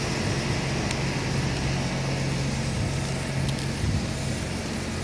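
A steady, low engine hum from running machinery, over a constant rush of open-air noise.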